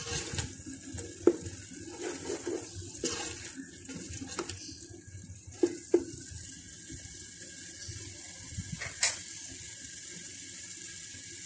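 Tomato-and-spice masala frying in oil in a metal pot: a steady sizzle. A spoon scrapes and stirs it against the pot in the first half, with a few sharp clicks, the last about nine seconds in.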